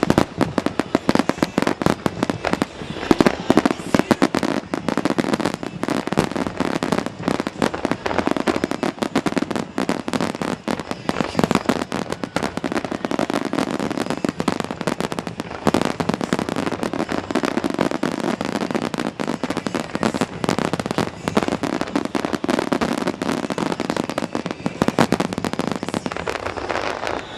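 Aerial fireworks bursting in rapid, continuous succession: a dense crackle of many sharp reports, with no pause.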